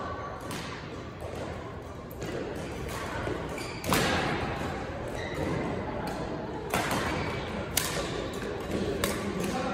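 Badminton rackets striking a shuttlecock in a doubles game: a series of sharp hits, the loudest about four seconds in, then roughly one hit a second as a rally is played.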